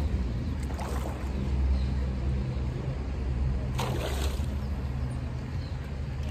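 A hooked fish splashing at the pond surface while being played on a rod, once about a second in and more loudly around four seconds in, over a steady low rumble.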